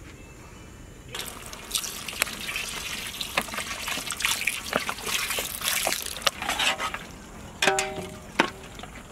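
Thick mutton korma gravy being stirred with a flat spatula in a large cooking pot: wet sloshing and squelching with frequent clicks and scrapes of the spatula against the pot. It starts about a second in, and a short ringing tone sounds near the end.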